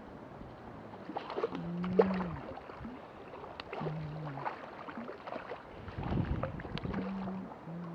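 Shallow river water splashing and sloshing around a wading angler's hands and legs as a brown trout is released and swims off, with scattered small splashes and a louder rush of water about six seconds in. A few brief low humming tones sound about two, four and near the end.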